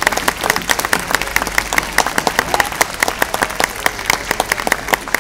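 Audience applauding, with sharp individual claps close at hand standing out over the wider applause.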